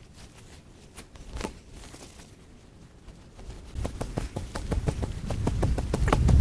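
Digging in dry, sandy soil with a wooden stick instead of a spade: scattered scrapes and clicks at first, then from about four seconds in a steady run of crunching, scraping jabs and dull thuds that grows louder.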